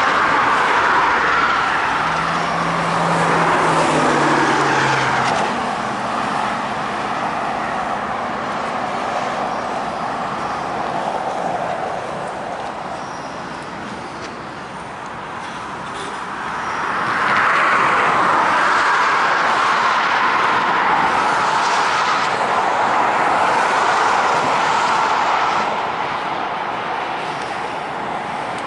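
Interstate highway traffic rushing past close by, swelling loudest around the start and again about halfway through as vehicles go by, with a brief engine drone falling slightly in pitch a few seconds in.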